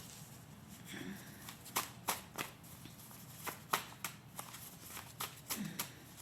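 A deck of tarot cards being shuffled by hand, with irregular crisp snaps and flicks of the cards.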